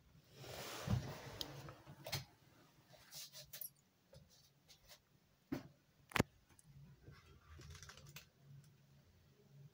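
Faint handling noise from a phone filming at a window: a brief rustle with a thump about a second in, then scattered sharp clicks and knocks, the sharpest about six seconds in.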